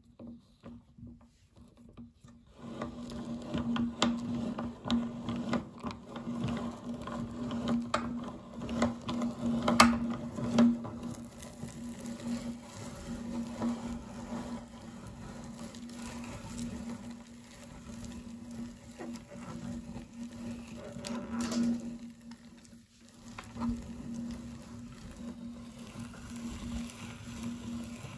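Electric meat grinder running with a steady hum as its auger crushes a crunchy puffed candy bar, with irregular cracks and crackles of the breaking candy. The hum comes in about two seconds in.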